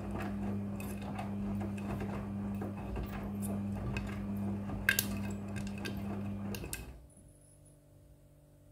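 Front-loading washing machine running a wash, its motor humming steadily under the churn of the tumbling load, with scattered sharp clicks. The hum and the tumbling stop abruptly near the end as the drum comes to rest.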